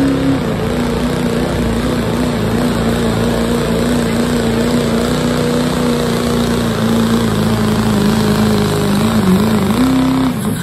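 Open-class diesel pickup truck pulling a weight-transfer sled under full throttle. The engine holds a steady high pitch, dips briefly about nine seconds in, climbs back, and falls away sharply at the very end.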